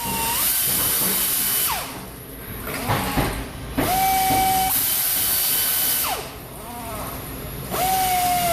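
Handheld power tool running out valve cover bolts in three runs of about two seconds each. Each run is a steady whine that rises as the tool spins up and drops as it stops, with a few clicks between runs.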